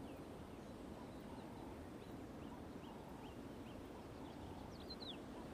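Quiet woodland ambience with small birds chirping: short falling notes scattered throughout, and a louder downward-slurred call about five seconds in.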